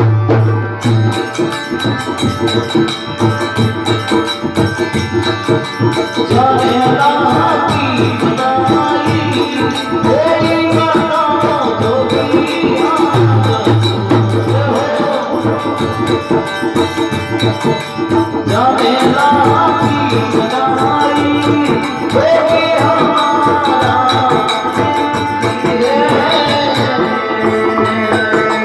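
Rajasthani devotional bhajan music: a hand drum keeps a steady beat under held tones. A gliding melody line comes in about six seconds in.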